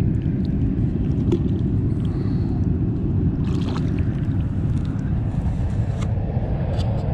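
Steady low rumble of wind on the microphone, with a few faint clicks scattered through it.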